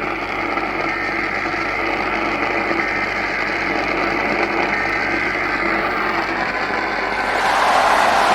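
AM radio static: a steady hiss that grows gradually louder and brightens near the end, with faint tones buried under it, as a staticky AM relay is tuned in ahead of an emergency alert.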